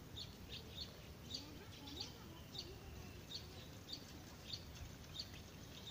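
A bird chirping over and over, short high chirps coming about every half second to second, against faint outdoor background noise.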